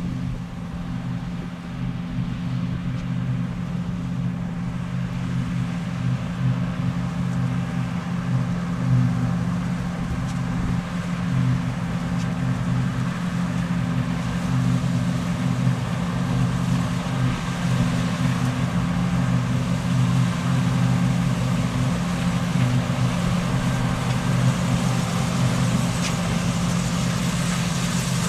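Fendt 6275 L combine harvester running steadily at working speed, a constant low engine drone, with the higher machinery noise growing louder from about halfway through.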